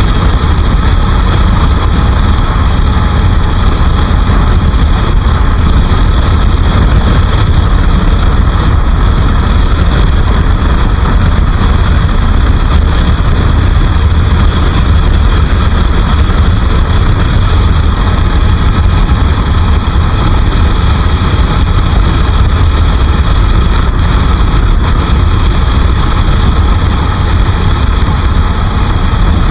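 Bajaj Pulsar RS 200's single-cylinder engine running steadily while the motorcycle is ridden, loud and unbroken, with heavy low rumble.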